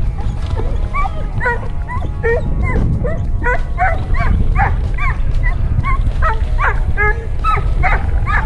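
Border Collie yipping and whining excitedly in quick, rising-and-falling cries, two or three a second, starting about a second in, while a hooked bass is brought to the boat. A steady low rumble runs underneath.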